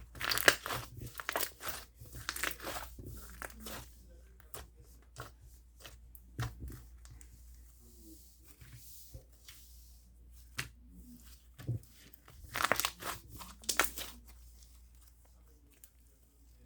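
Slime being squeezed and stretched by hand, giving bursts of crackling, popping clicks. The crackling is thickest in the first few seconds and again about thirteen seconds in, with single snaps between.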